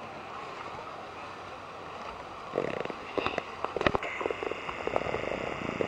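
Steady wash of noise from the boat and sea, then from about halfway a run of sharp, irregular crackles and pops with a hiss coming in: lava pouring into the ocean.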